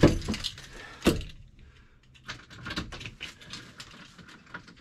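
Handling sounds in a van's cab: a sharp knock at the start, another about a second in, then a run of small clicks and rattles.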